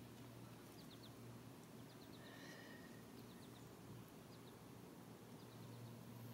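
Near silence with faint high chirps in quick runs of three or four, repeating about once a second, and one longer call about two and a half seconds in, over a low steady hum.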